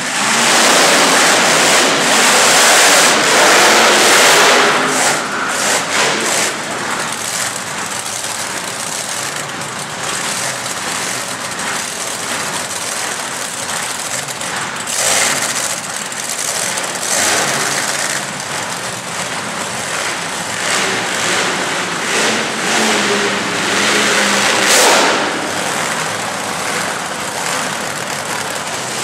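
Monster truck engines revving and running. They are loudest over the first five seconds, with a few shorter surges later.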